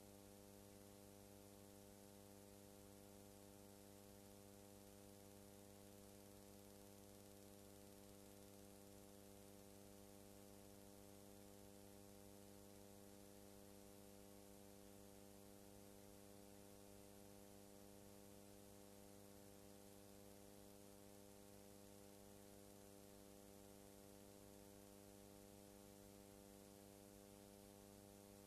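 Near silence: a faint, steady electrical hum with hiss, unchanged throughout.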